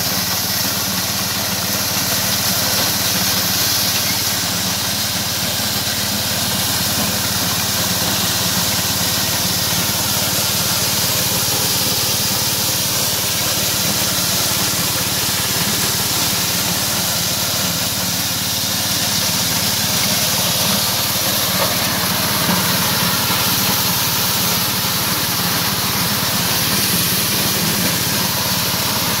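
Crop Doctor multicrop thresher shelling maize cobs, belt-driven by a small stationary engine running steadily, with a constant hissing rattle over the engine's note.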